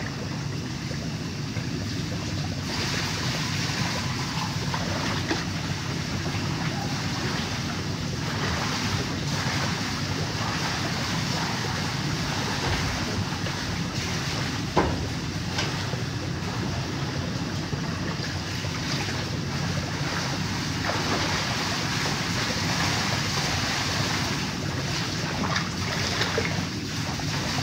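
A steady rushing noise, with one short knock about 15 seconds in.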